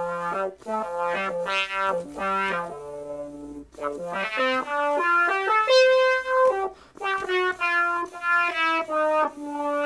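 Software synthesizer voice played from a homemade breath-controlled MIDI recorder (Teensy LC with breath sensor and capacitive finger keys): a melody of short notes with two brief breaks and one longer held note midway. The notes follow his breath and fingering, a sign that the freshly calibrated controller works.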